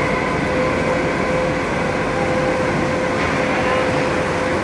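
Automatic banjo-axle straightening press running: steady machine noise with a constant hum.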